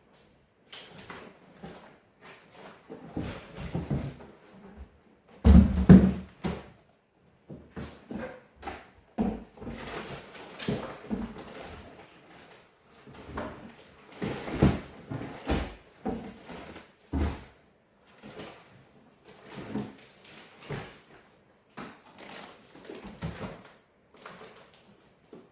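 Packs of beef and boxes being handled and set down: irregular knocks, rustles and thuds, the loudest a heavy thud about six seconds in.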